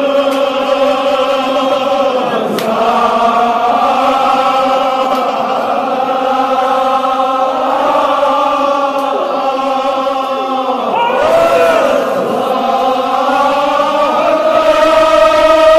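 A crowd of men chanting a Kashmiri marsiya, a Shia elegy, together in long drawn-out notes, a little louder near the end.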